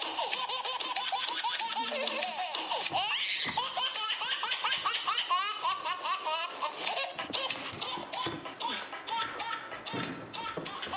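A recorded funny tune of high-pitched, baby-like laughter over music, the laughs coming quickly one after another with many quick rises and falls in pitch.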